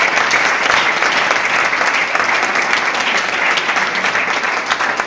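Loud applause from an audience, many hands clapping at once.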